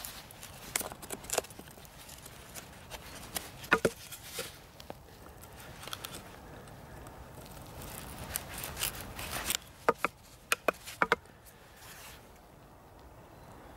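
Knife blade cutting and scraping into a split wooden stick, with irregular sharp clicks and knocks of blade and wood. A loud knock comes about four seconds in, and a quick run of loud knocks comes near the end.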